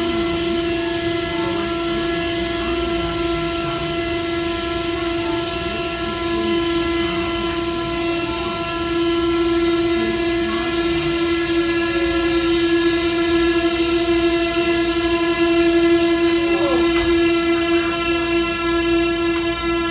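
Taiwan Railway local train's horn sounding one long, steady blast, heard from inside a passenger car as the train rolls into a station, over the low rumble of the train. It is the 30-second horn blast sounded in mourning.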